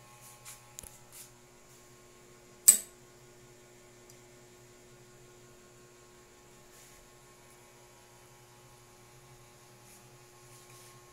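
A single sharp, loud knock about three seconds in, with a brief ringing tail, over a faint steady hum.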